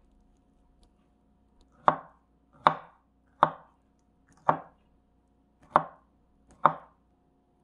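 Kitchen knife slicing a firm, underripe avocado on a wooden cutting board. Six sharp knocks as the blade comes down through the flesh onto the board, starting about two seconds in and spaced roughly a second apart.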